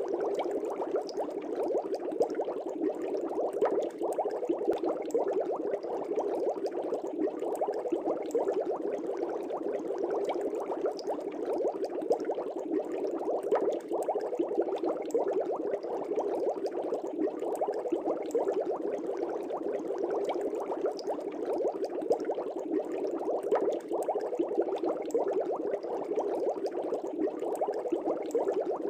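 Air bubbles streaming up through a fish tank: a steady, dense bubbling with many small pops.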